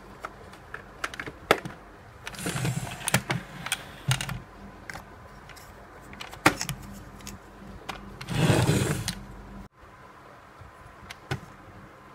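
Hands handling the plastic DX Ixa Belt toy: scattered clicks and rattles of its parts, with a scraping rustle about two seconds in and a louder one near eight seconds. The sound cuts off abruptly near the end.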